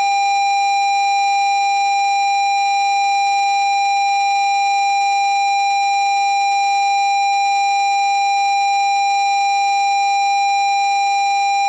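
Low-pitched parking-sensor warning sound effect at its nearest-distance stage: one continuous, unbroken tone held steady, the signal that the obstacle is at its closest.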